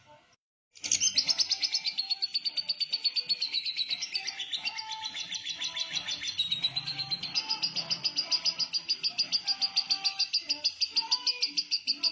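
Lovebird in 'ngekek panjang': one long, unbroken run of rapid, evenly pulsed high chattering notes, the extended 'konslet' song prized by Indonesian bird keepers. It starts about a second in, after a short near-silent gap.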